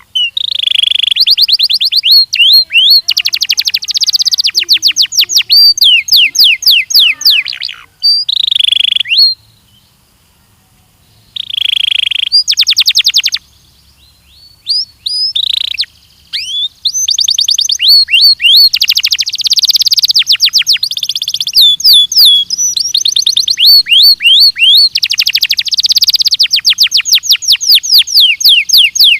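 Belgian canary singing: long runs of rapid trills and fast repeated sweeping notes, broken by two short pauses near the middle.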